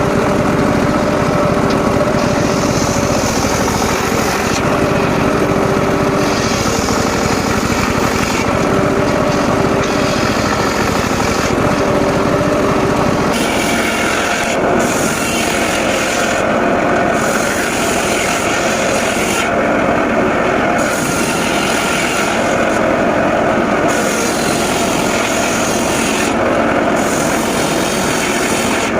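An engine-driven circular saw cuts mahogany, the engine running steadily under load as the blade works through the wood. The tone of the cut changes about halfway through.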